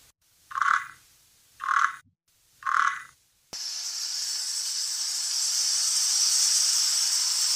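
An animal calling three times, about a second apart, short and fairly high. About halfway through it cuts abruptly to a steady high hiss.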